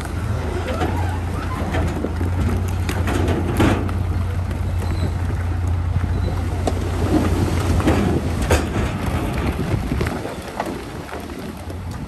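Heavy construction machine's engine running with a steady low drone, with scattered clanks and rattles over it; the drone drops away about ten seconds in.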